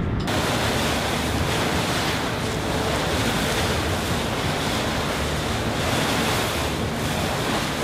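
Choppy, fast-current river water churning past a moving riverboat, with wind buffeting the microphone: a steady rushing noise with a low rumble.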